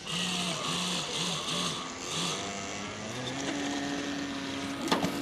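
Motor whine of radio-controlled model boats. A run of about five short pulses fills the first two seconds, then a steady tone rises slightly in pitch, and a sharp click comes near the end.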